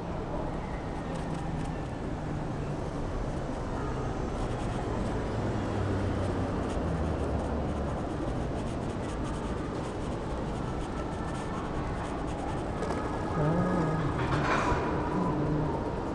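City street traffic: a steady rumble of passing vehicles, with a brief louder, brighter sound near the end.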